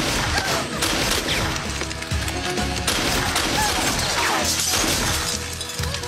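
Action-film fight music over repeated crashes and smashing as dishes, glassware and goods are knocked off shop shelves.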